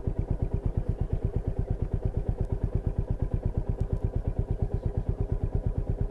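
Royal Enfield Meteor 350's single-cylinder engine running at steady low revs, its exhaust giving an even, rapid thump of roughly a dozen beats a second.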